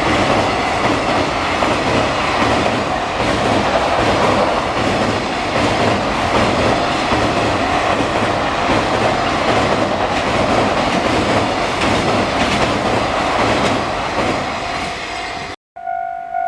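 Train passing close by on the Tokaido main line: a loud, steady rumble with wheels clattering over the rail joints. Near the end the sound breaks off briefly. A level-crossing alarm follows, ringing in even, repeated dings.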